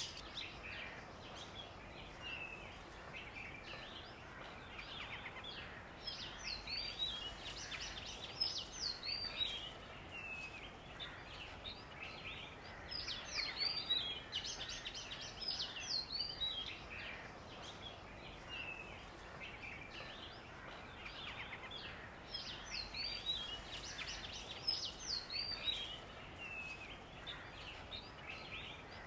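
Birds chirping in clusters of quick, curling high notes that come and go every few seconds, over a steady faint background hiss.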